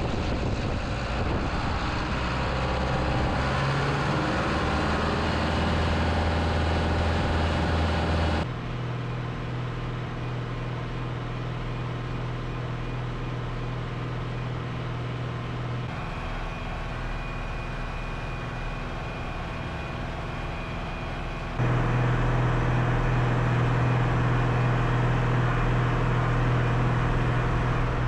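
Ford 5600 tractor's three-cylinder diesel engine running while the tractor is driven, revving up over the first few seconds and then pulling at a steady note. The engine sound changes abruptly three times.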